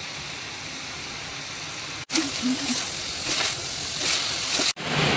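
Ridge gourd stir-fry sizzling steadily in the pot. After a cut, a wooden spatula scoops and scrapes it out, with a few light knocks as it is served onto a plate.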